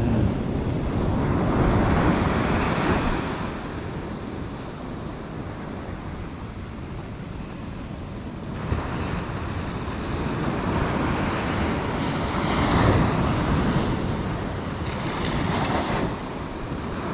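Ocean surf breaking and washing up a sandy beach, swelling and easing several times as waves run in, with wind buffeting the microphone.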